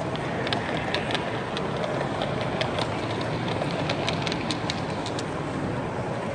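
Model train's wheels clicking over rail joints and pointwork as the coaches roll past, a run of sharp irregular clicks over steady hall background noise.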